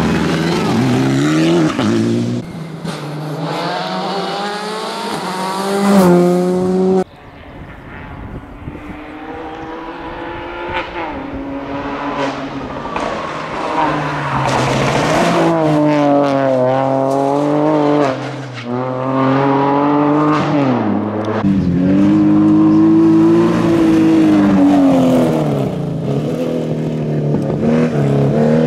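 Rally car engines at high revs, pitch climbing and dropping again and again with the gear changes as cars pass one after another. About seven seconds in the sound cuts off suddenly, and another car's engine builds up from quieter.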